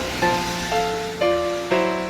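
Background instrumental music, with new notes or chords struck about every half second.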